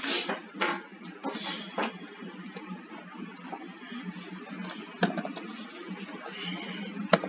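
A few scattered sharp clicks and taps over steady room hum, the loudest about five seconds in and another just before the end.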